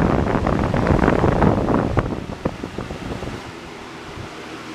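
Galaxy box fan with a Lasko Wind Machine blade running very fast on high: rushing air and wind buffeting on the microphone. About two seconds in the noise falls away as the fan slows to a quieter, steadier run, which fits being switched down toward medium.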